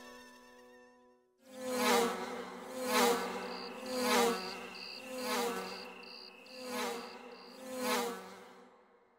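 Night-time insect ambience: a cricket-like high chirp in short, even pulses, with a lower buzzing call repeated about once a second. The calls start about a second and a half in and stop just before the end.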